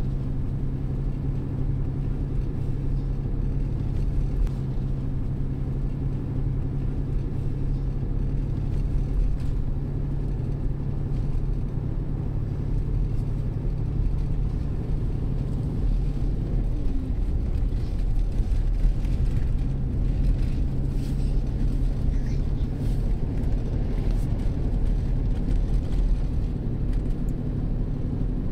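A Toyota car driving on a paved road, heard from inside the cabin: a steady low rumble of engine and tyre noise.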